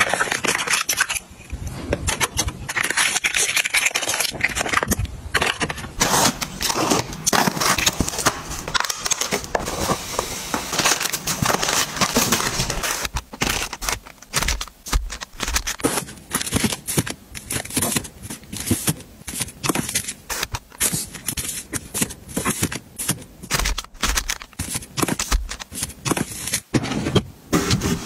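Close-up handling sounds of packaging, a quick run of crackles, rustles and small clacks: a cardboard sample box being torn open, then soft plastic wet-wipe packs crinkling as they are pushed into place, then plastic water bottles knocking as they are set down one after another.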